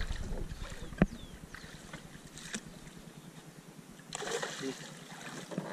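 A hooked fish splashing at the surface beside the boat as it is brought to the landing net, with a burst of splashing about four seconds in. A single sharp knock about a second in, and a few faint bird chirps.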